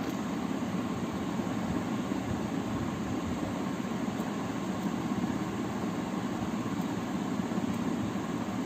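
Steady low hum with hiss, even and unchanging throughout.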